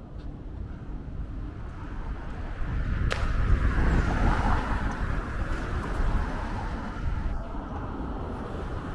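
Street traffic: a motor vehicle passes close by, swelling about three seconds in and fading over the next few seconds, over a steady rumble of traffic. A single sharp click comes just as it grows loud.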